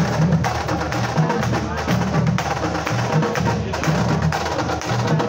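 Marching drumline of snare drums, tenor drums and bass drums playing a cadence: a fast, dense run of drum strokes over a repeating low bass-drum pattern.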